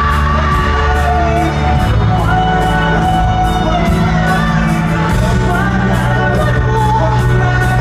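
Pop-rock band playing live in an arena, heard from the audience with the hall's echo. Long held sung notes sit over deep sustained bass notes that change about every three seconds.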